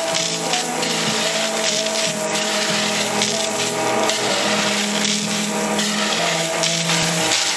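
Gravel being shoveled and spread in a trench, the shovel scraping and rock rattling in an irregular run of rough, gritty strokes.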